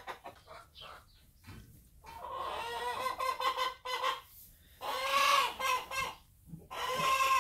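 Chickens calling: a drawn-out call about two seconds in, another around five seconds, and a third near the end, with quieter gaps between.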